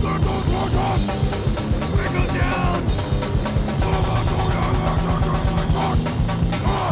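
Heavy, punk-style rock music: distorted guitar and bass over fast, dense drumming.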